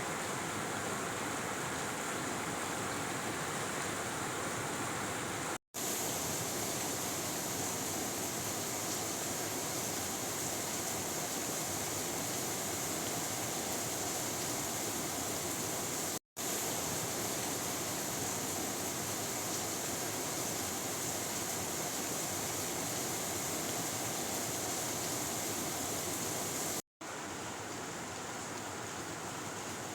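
Steady heavy rain, an even hiss with no thunder claps. The sound cuts out for a split second three times, at the joins of a looped recording.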